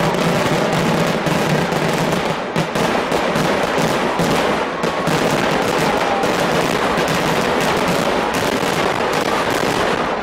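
Kerala vedikettu fireworks salvo: a dense, unbroken barrage of explosions, many bangs a second running together.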